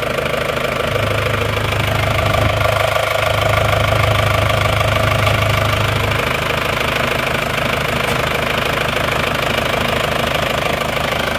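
Isuzu diesel engine idling with an even clatter, a little louder for a few seconds in the middle, while its oil filler cap is held open for a blow-by check. The mechanic finds no significant blow-by and judges it still fairly good-sounding, not rough, so it needs no overhaul.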